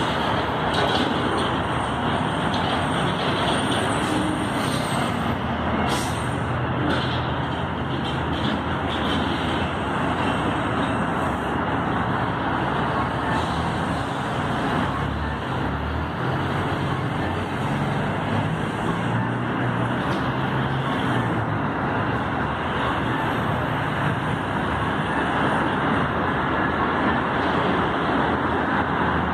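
Steady road traffic noise from passing vehicles, with a heavier engine's low rumble through the middle stretch.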